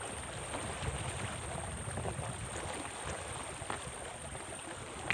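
Waterside ambience: water lapping and trickling with a low, uneven rumble of wind on the microphone, a few small ticks and splashes, and a thin steady high-pitched whine.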